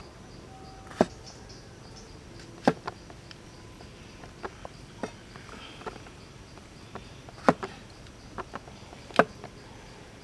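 A large kitchen knife strikes a wooden chopping board as mushrooms are sliced: a dozen or so sharp, irregular knocks, the loudest about a second in, near three seconds, at seven and a half and at nine seconds. A faint, steady insect drone runs behind.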